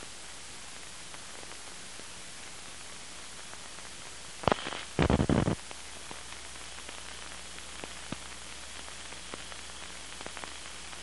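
Steady hiss of an old videotape transfer, with no programme sound, broken by two short loud bursts of static about four and a half and five seconds in and a sharp click at the end.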